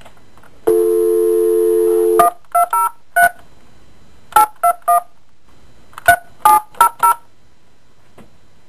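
Telephone dial tone for about a second and a half, then eleven touch-tone key beeps in groups of four, three and four as a long-distance number is dialled, heard through a fax machine's phone speaker.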